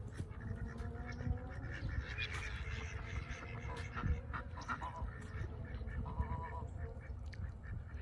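Ducks quacking and Canada geese calling on a pond, in short repeated calls over a steady low rumble.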